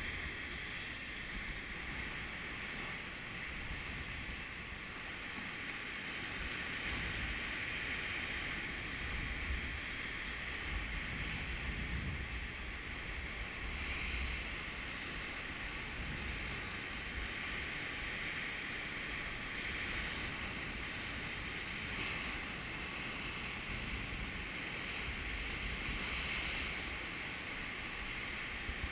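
Sea surf breaking and washing over coastal rocks: a steady rushing wash that swells and eases, with wind buffeting the microphone.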